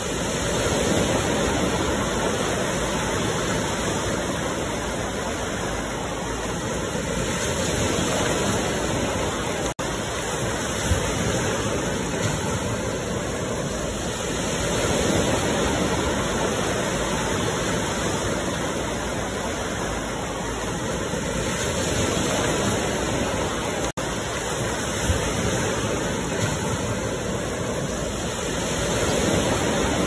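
Ocean surf washing steadily on the shore, swelling and easing about every seven seconds, with two momentary dropouts in the sound.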